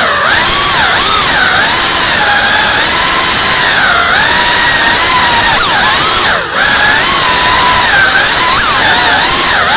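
Tiny whoop FPV drone's motors and propellers whining, the pitch swooping up and down with the throttle. About six and a half seconds in the whine dips and drops sharply in pitch for a moment, then picks up again.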